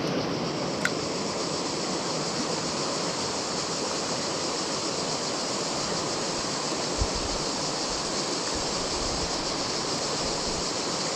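Shallow mountain river rushing over rocks, a steady, even rush of water, with a single brief click about a second in.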